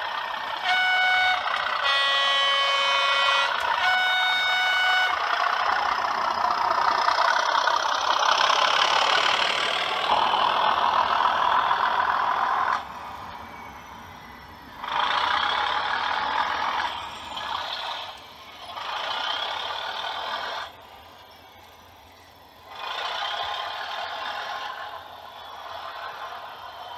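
DCC sound-fitted OO gauge model diesel locomotive sounding its horn through its onboard speaker: three blasts, the middle one lower and longer. Its diesel engine sound then runs loudly for several seconds as it hauls its wagons past, and after that comes and goes in quieter surges as it moves away.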